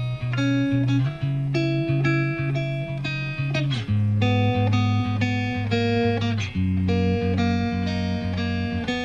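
Instrumental background music: repeated plucked guitar notes over a sustained bass, the chord changing every two to three seconds, with no singing.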